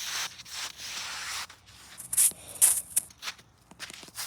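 A series of irregular rubbing and scraping noises, with two sharper, brighter scrapes a little past the middle.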